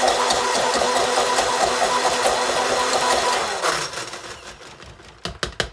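Handheld stick (immersion) blender running in a container of soap batter, mixing the colorant in. It shuts off about two-thirds of the way through, and a few sharp knocks follow near the end.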